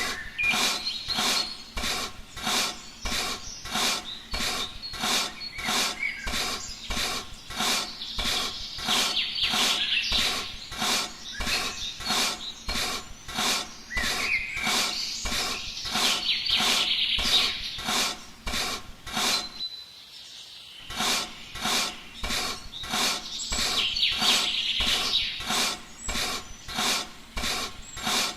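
Steady rhythmic rasping or rubbing strokes, like hand filing or sanding, about three strokes every two seconds, with a short pause about two-thirds of the way through.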